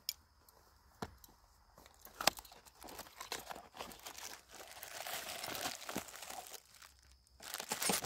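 A cardboard box being opened, with a few sharp taps in the first couple of seconds, then a plastic bag crinkling steadily as the handcuffs wrapped in it are drawn out of the box; the crinkling stops abruptly near the end.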